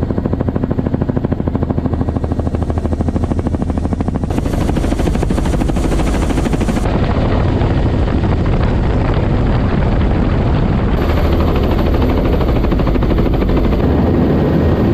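Helicopter rotor and engine noise heard from inside the cabin with the door open: a rapid, even beating of the blades over a dense, steady rush of noise.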